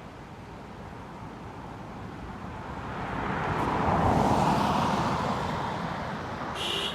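A vehicle passing by: a rushing noise that swells to a peak about four seconds in and then fades away.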